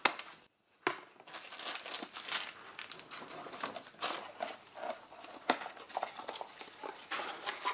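Packaging crinkling and rustling in gloved hands as a boxed car part is unwrapped, with many small irregular crackles and handling clicks starting about a second in.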